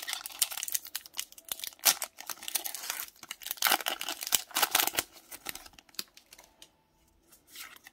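Foil-lined plastic wrapper of a Pokémon trading card booster pack being torn open and crinkled by hand, a dense crackling that thins out after about five seconds as the cards are drawn out. A last short crinkle comes near the end.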